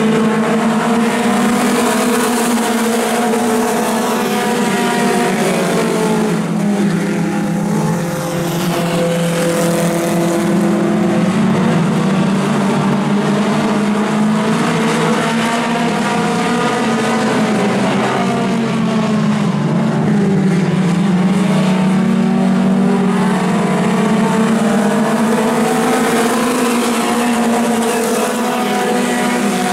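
A field of four-cylinder mini stock race cars running laps together, many engines overlapping into one steady, loud sound. Their pitch rises and falls as the pack goes around, dipping noticeably about eight seconds in and again around eighteen to twenty seconds in.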